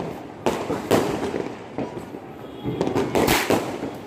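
Firecrackers going off: a run of sharp bangs at irregular intervals, about half a second to a second apart.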